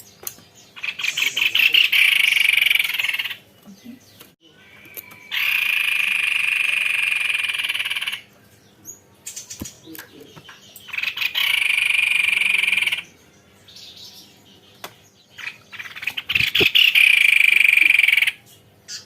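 White-necked babbler singing in long, rapid rolling trills. Four trills of about two to three seconds each, with short pauses between.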